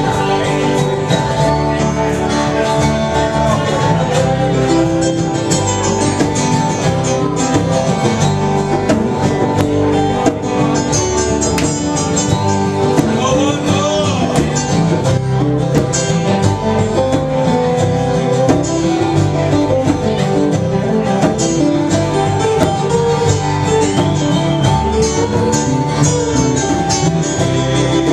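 Live band playing acoustic, country-style music led by guitar, with a steady beat.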